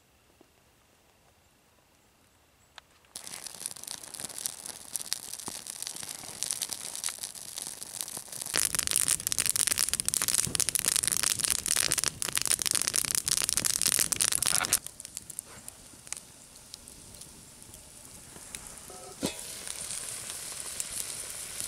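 Open campfire of dry branches crackling and popping with dense snaps, starting suddenly about three seconds in after near silence and loudest in the middle. Near the end, after a knock, a frying pan of beef strips and fish begins to sizzle over the fire.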